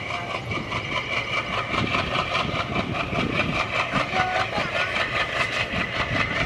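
ALCo diesel locomotive heard from on board the train, its engine chugging with a fast, even pulse over the steady running noise of the coaches.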